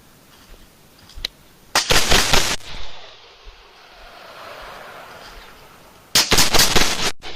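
Rapid gunfire: two short bursts of closely spaced shots, each under a second long, about four seconds apart, the first trailing off in echo.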